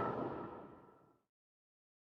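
The fading, echoing tail of a sudden loud horror sound effect, dying away within the first second and cutting to dead silence.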